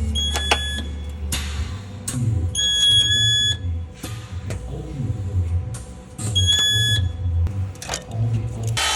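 Resistance spot welder at work on car body panels: its tone beeps three times, about every three seconds, between short hissing bursts of the welds.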